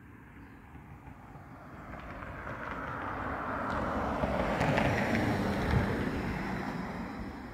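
An SUV passing on the road: tyre and engine noise that swells over several seconds, is loudest about five seconds in, then fades.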